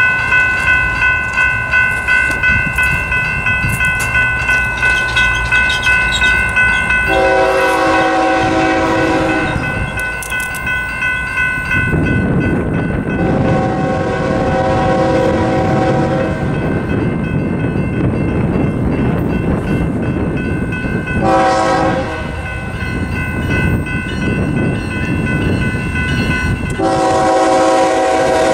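A crossing bell rings at about two strokes a second. Then a BNSF ES44C4 locomotive's Nathan K5HL five-chime air horn sounds the grade-crossing pattern: two long blasts, a short one, and a final long one starting near the end. The train's rumble grows louder as it approaches.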